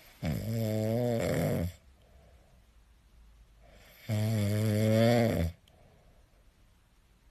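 French bulldog snoring while dozing: two long, low, rasping snores about four seconds apart, with soft breathing between them.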